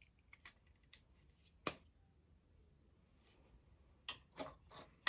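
Faint clicks and taps of a plastic pregnancy test stick being handled, with one sharper click about a second and a half in, followed by a few soft rustles near the end.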